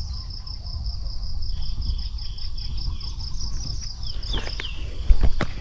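An insect trilling in a fast, even pulse of about five chirps a second, stopping near the end, with a few short bird chirps as it fades. A low rustle of steps and camera handling runs under it, with one sharp knock near the end.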